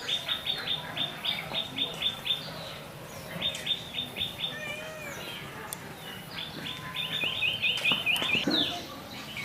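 A bird chirping in fast runs of short, repeated high chirps, about five or six a second. There are three bursts: a long one at the start, a short one a few seconds in, and another near the end.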